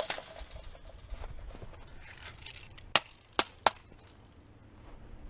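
Three sharp knocks about a third of a second apart from a chopped-up metal disk drive and a tomahawk being handled, with a short click at the start and a faint rustle shortly before the knocks.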